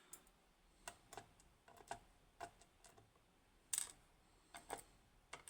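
Scattered light clicks and taps of the tiny pins from a disassembled Kaba Ace dimple lock being handled and set down, irregular, with one sharper click about four seconds in.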